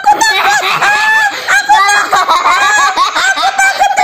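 A young girl laughing hard in a run of high-pitched, cackling bursts.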